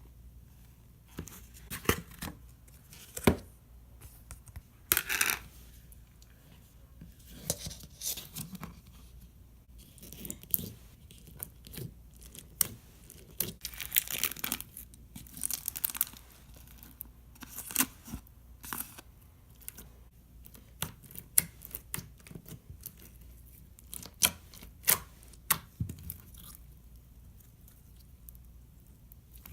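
Hands squishing, stretching and folding a beaded fishbowl slime made with clear glue, giving irregular crackling pops and squelches.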